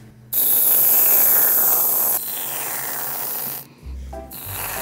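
Aerosol can of whipped cream spraying cream out through its nozzle with a long hiss, which stops briefly about three and a half seconds in.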